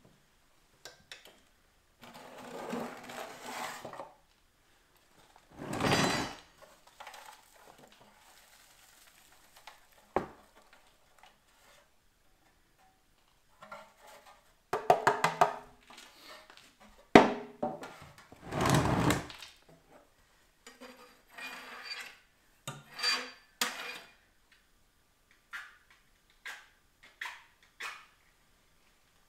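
Irregular clanks, knocks and scraping as the metal parts of a wood stove are handled and cleaned, with two longer, louder rough scraping passages.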